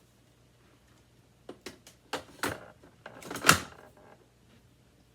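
Hard plastic clicks and knocks from handling a Hoover WindTunnel 2 upright vacuum: a quick run of them starting about a second and a half in, the loudest near the middle, over a faint steady hum.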